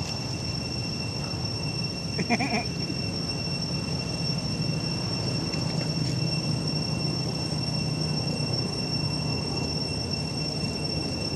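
A short pitched call about two seconds in, from a macaque, over a steady high-pitched two-tone drone and a low hum.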